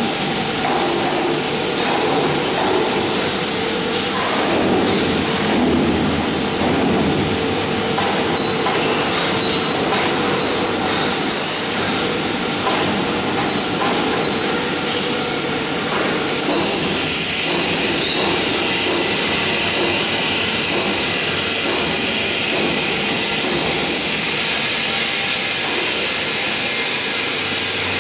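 Steady industrial workshop noise: machinery running with a constant hum and hiss, the hiss growing stronger a little past halfway.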